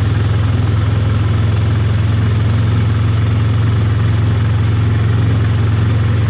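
2009 Honda Rancher ATV's single-cylinder engine running at a steady speed, a low, even drone that does not change.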